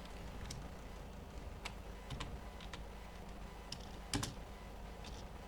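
Computer keyboard keys being pressed: scattered, irregular clicks, with a louder clack about four seconds in, over a low steady hum.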